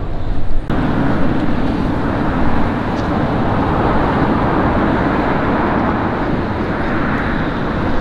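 Strong wind blowing across the microphone: a steady, loud rumble of noise that grows fuller about a second in.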